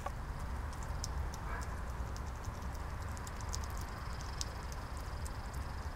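European hedgehog chewing and smacking at a block of wet meaty food, making irregular small wet clicks, several a second.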